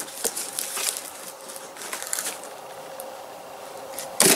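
A cardboard package being cut open with a knife and pulled apart: scattered scraping and crackling of cardboard and tape, with one loud sharp crack near the end.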